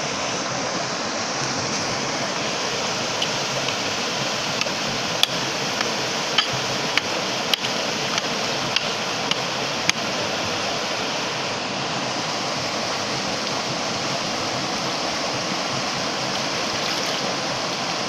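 Steady rush of shallow stream water flowing over rocks, with a handful of sharp clicks scattered between about three and ten seconds in.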